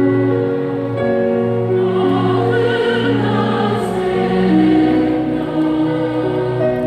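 Choir singing a slow hymn in long held notes with vibrato, over a sustained low accompanying tone.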